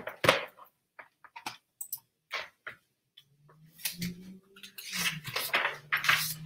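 A hardcover picture book being handled and its page turned: a scatter of small clicks and taps, then paper rustling in the second half.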